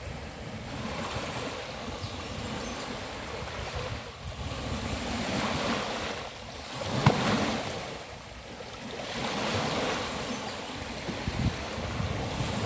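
Sea waves breaking and washing up a beach, the surf swelling and falling back every few seconds, with the loudest break about seven seconds in.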